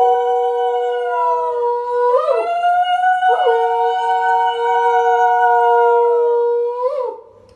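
Conch shell (shankha) blown for the aarti in long held notes, with brief breaks and pitch dips between blasts, stopping shortly before the end.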